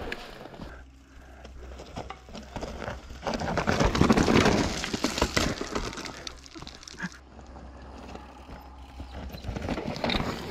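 Mountain bike rolling down a rocky dirt trail: tyres crunching over stones and roots and the bike rattling and knocking over the bumps. It is loudest about four seconds in and eases off later.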